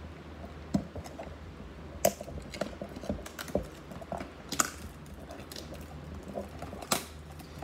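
A cardboard blaster box of trading-card packs being opened and the foil packs handled: irregular clicks, taps and crinkles, a few sharper snaps among them.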